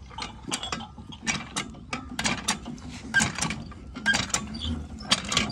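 Cast-iron hand water pump being worked by its lever handle, the handle and linkage clanking and squeaking in pairs of strokes about once a second.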